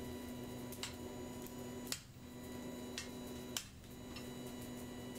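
Hammer striking the top die of a blacksmith's guillotine tool: four light taps, irregularly spaced, shaping the hot bar held between the dies. A steady electrical hum runs underneath.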